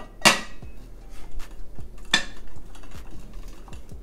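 Metal pole sections of a dance pole kit clinking and scraping as the pole is twisted and screwed together by hand. There are two sharper metallic clanks, one just after the start and one about two seconds in, with lighter ticks between.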